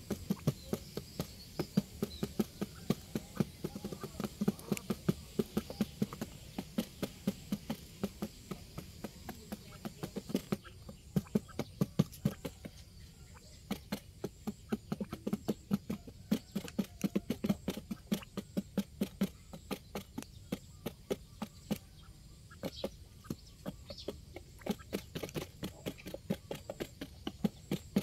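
Quail pecking grain off a cardboard sheet: sharp, irregular beak taps a few times a second, with a few short pauses.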